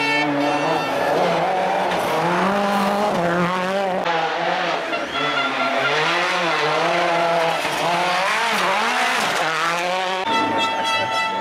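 Rally car engine revving hard through a tight bend, its pitch climbing and dropping again and again with the throttle and gear changes. About ten seconds in the sound cuts to a steadier, even tone.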